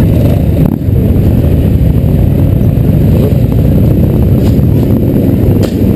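Motorcycle engines of a slow-moving group of bikes, including the rider's own Yamaha XJ, running in a steady low rumble, picked up by a helmet-mounted camera. A short knock comes about a second in and another near the end.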